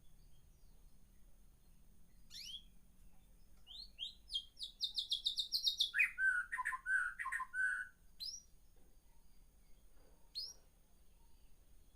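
Caged songbird singing: a fast run of high repeated notes, then a phrase of lower warbled notes. Single sharp down-slurred calls come before and after.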